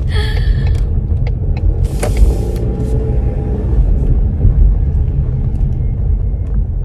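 Car on the move, heard from inside: a steady low rumble of wind and road noise, with wind buffeting the microphone. A few light knocks and a short hiss about two seconds in.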